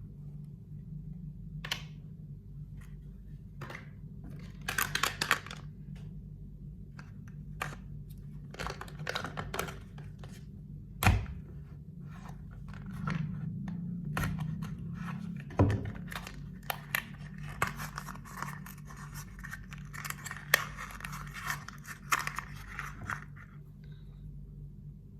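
Packaging being torn and cut open by hand: bouts of tearing and rustling with scattered clicks and a few sharp knocks, over a steady low hum.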